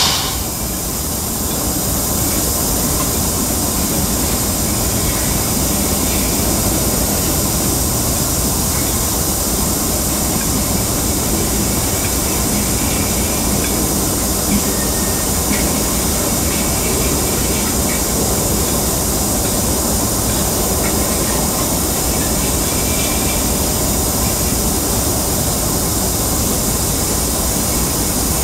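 Freight train's tank cars and boxcars rolling past: a steady rumble and clatter of steel wheels on the rails.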